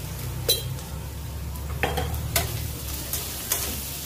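Chopped onions, green chillies and ginger-garlic paste sizzling in oil in a kadhai while a spatula stirs in the turmeric, scraping and knocking against the pan about half a dozen times.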